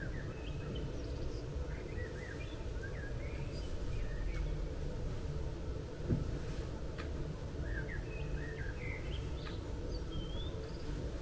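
Small songbirds chirping in short scattered calls over a steady low rumble of town background noise, with a single sharp knock about six seconds in.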